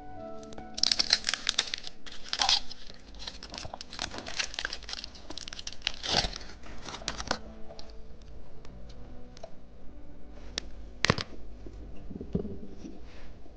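Plastic candy wrapper being torn open and crinkled: about six seconds of dense rustling and tearing, then a few scattered clicks and taps, one sharp click near the end.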